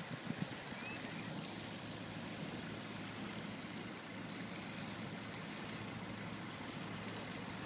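Hydroseeder running: a steady engine-and-pump hum with the hiss of slurry spraying from the hose. A couple of short thumps near the start.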